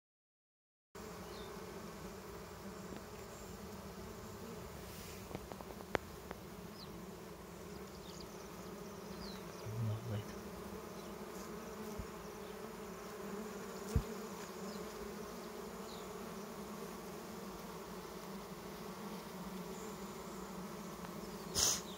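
Honey bee colony buzzing on its exposed comb: a steady, even hum of many bees, starting about a second in, with a few faint clicks.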